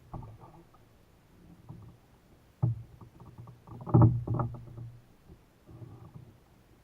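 Knocks and thumps on the hull of a Vibe Sea Ghost 130 fishing kayak, the sound of gear or a paddle bumping the boat. There is a sharp knock about two and a half seconds in and the loudest cluster of thumps about four seconds in, with lighter knocks around them.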